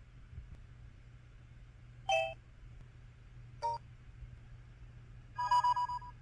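LG-SU550 phone's built-in electronic system tones from its Qualcomm CMX sound chip, playing from the phone's speaker. There are three separate effects: a short chime about two seconds in, a very short blip near the middle, and a longer chord of several tones near the end.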